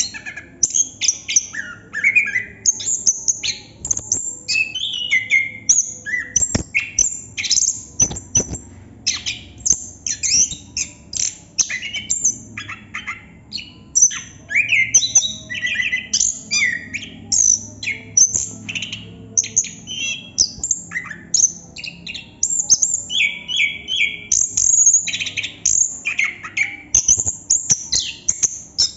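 Chestnut-capped thrush singing a long, non-stop run of rapid, varied high chirps, trills and short whistled glides, with barely a pause between phrases.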